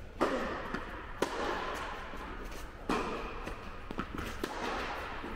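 Tennis balls struck by rackets in a rally, a sharp pop every second or two, each ringing on in the echo of a large indoor tennis hall.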